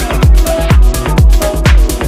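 Electronic dance music with a steady kick drum beating a little over twice a second and short repeating synth notes above it.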